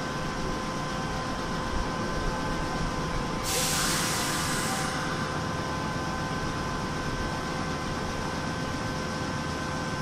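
Short hiss of compressed air let out by a stopped Sanyo Electric Railway 3000 series train, lasting just over a second about three and a half seconds in. A steady whine of a few fixed tones runs underneath.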